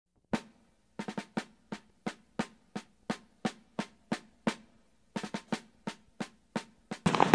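A solo drum beat, added music: sharp single drum strokes about three a second, with quick clusters of two or three strokes about a second in and again about five seconds in, and dead silence between strokes. Just before the end, live outdoor sound cuts in.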